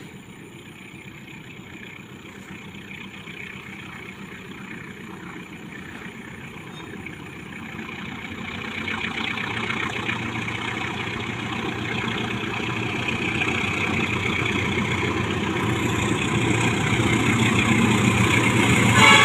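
Diesel locomotive of a passenger train approaching along the track, its engine and running noise growing steadily louder as it nears.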